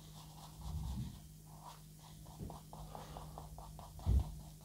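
Faint scratchy strokes of a paintbrush on canvas, laying on a thin layer of oil paint, over a steady low hum. A couple of soft low thumps come about a second in and near the end.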